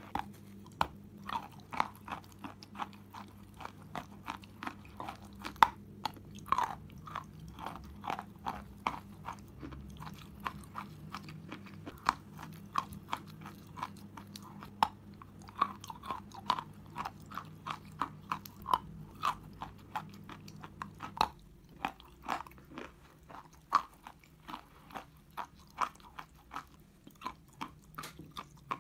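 Chewing a mouthful of white chalk, close to the microphone: a steady run of short, crisp crunches, about two a second, some louder than others.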